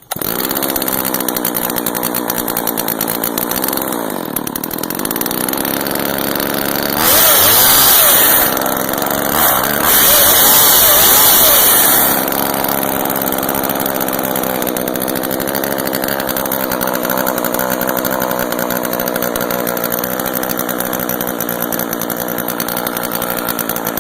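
Homelite VI Super two-stroke chainsaw catching and running at a steady idle, revved hard twice in the middle for a second or two each, then settling back to idle. It is loud, with its spark arrestor taken out.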